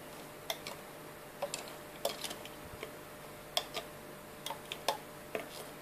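Light, irregular clicks of a plastic loom hook and clear plastic beads knocking against the plastic pegs of a Rainbow Loom as rubber bands are hooked over, about a dozen clicks spread over several seconds.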